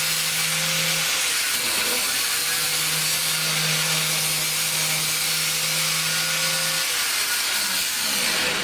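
Angle grinder running with its disc cutting into an iPhone, a steady harsh grinding hiss over the motor's hum. The hum drops out and its pitch shifts briefly about two seconds in and again near the end, as the disc bites harder. The cutting is going hard. The grinding stops at the very end.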